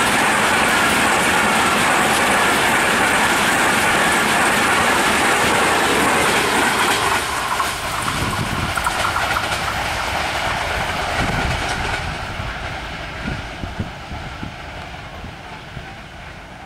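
Pakistan Railways passenger coaches rushing past at speed, the wheels running hard over the rails. About seven seconds in the noise drops as the last coach goes by, and the rumble fades steadily as the train recedes.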